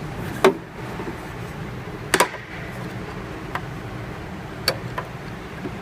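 Plastic BUD DCH enclosure, cover closed, dropped onto a hard surface: about four sharp knocks, the loudest about two seconds in, as a drop test of the cover latch.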